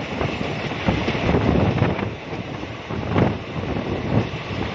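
Wind buffeting the microphone held out of a moving passenger train's window, over the running rumble of the coaches on the track, with a louder thump about three seconds in.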